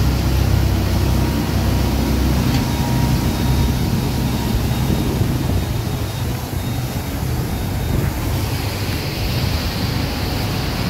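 Motor yacht under way at speed: the steady low drone of its engines under the rushing hiss of the churning wake.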